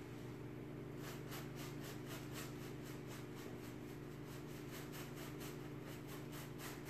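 Paintbrush scrubbing chalk-type paint into upholstery fabric in quick back-and-forth strokes, about three or four a second, starting about a second in. A steady low hum runs underneath.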